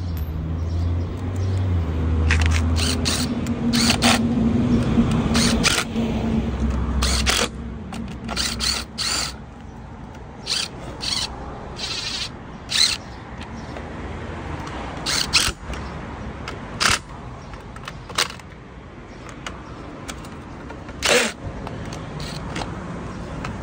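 A series of separate sharp clicks and knocks of parts and tools being handled during work on an electric lawn mower's motor and wiring. A low steady hum sounds for the first few seconds.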